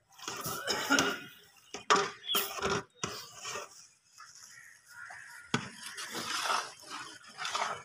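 Long-handled metal spatula stirring liquid in a large aluminium cooking pot, with irregular scrapes and clinks of metal against the pot.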